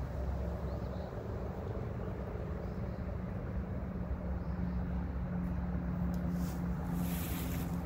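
Wind buffeting the microphone, a steady low rumble, with a few short rustles near the end.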